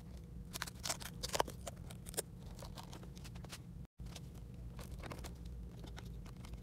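Gloved hands handling clear plastic tubing and tools on a rubber work mat: scattered small clicks, taps and rustles over a low steady hum. The sound cuts out for an instant a little under four seconds in.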